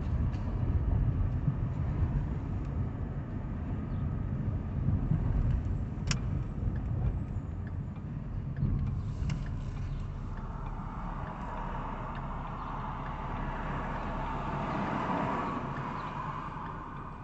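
Car's engine and tyres heard from inside the cabin while driving: a steady low rumble that eases in the second half. A brighter whooshing hiss swells and peaks near the end, and there is a single sharp click about six seconds in.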